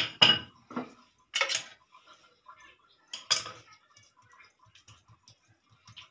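Kitchen utensils clattering against a hard stone work surface, a handful of sharp knocks in the first three and a half seconds. Then faint soft patting as an oiled hand presses thin parotta dough flat on the slab.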